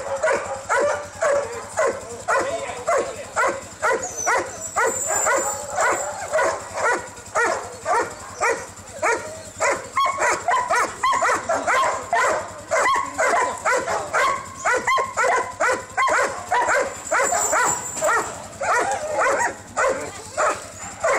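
A team of harnessed huskies barking and yelping together without a break, several barks a second from many dogs at once: the eager noise of sled dogs hitched up and waiting to run.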